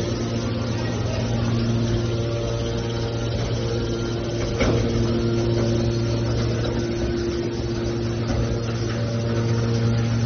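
Hydraulic scrap metal baler's power unit, its electric motor and pump running with a steady hum on one low note with overtones. A single short knock about halfway through.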